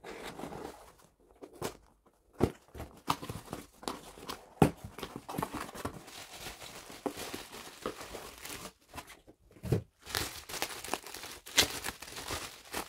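A cardboard package being opened: scissors snipping through the packing tape, then cardboard flaps and wrapping tearing, rustling and crinkling in irregular crackles and sharp clicks.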